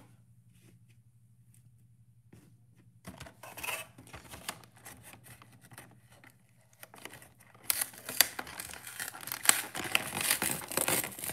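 The packaging of a Pokémon card collection box being handled and torn open: scattered rustles and clicks from about three seconds in, then louder, continuous tearing and crinkling of plastic and cardboard from about eight seconds in.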